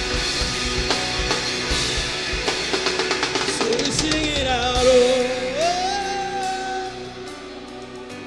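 Live rock-style worship band playing, with a drum kit and guitars driving hard at first. About halfway through a long note slides up and holds, and the music then dies down near the end.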